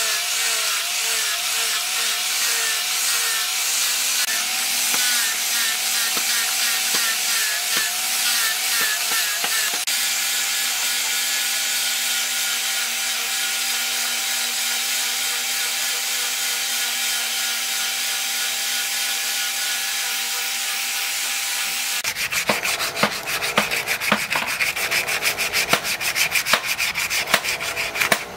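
Electric angle grinder with a sanding disc running against a wooden knife handle, its whine wavering in pitch over the first ten seconds or so, then steady. About 22 seconds in the grinder stops and sandpaper worked by hand takes over, rubbing the wooden handle in quick strokes.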